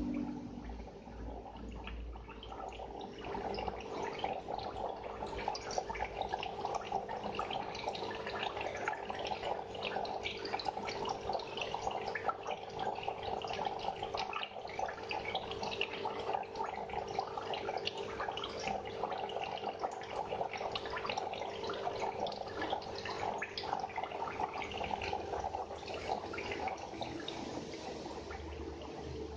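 Aquarium water bubbling and trickling, a steady stream of small pops and splashes, over a steady hum.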